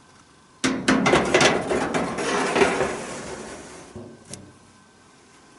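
Metal baking tray sliding into a small countertop oven, clattering and scraping along the rack. It starts with a few sharp knocks, the scraping fades after a couple of seconds, and there is one more click near the end.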